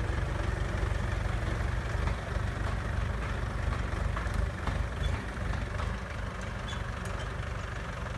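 Diesel engine running steadily at low revs, a continuous low rumble that eases slightly after about six seconds.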